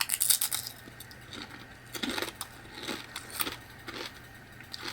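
Plastic potato chip bag crinkling as it is handled: a quick burst of crackles at the start, then a few shorter crackles.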